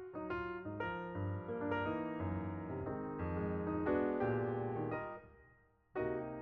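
Background music: piano or electric piano playing a melody of separate notes, which stops briefly near the end and then starts again.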